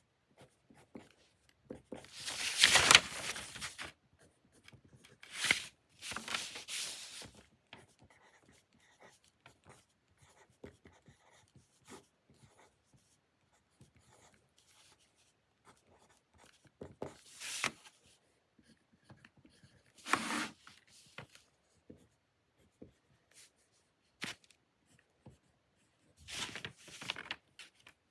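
Writing on paper during homework: irregular scratchy strokes and short scribbling runs, the longest and loudest about two to four seconds in, with small ticks and taps between them.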